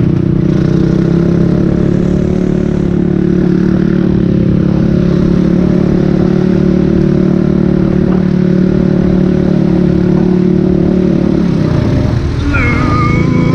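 ATV engine running steadily while being ridden, its note holding even, then changing about twelve seconds in as the engine speed shifts and settles at a new pitch.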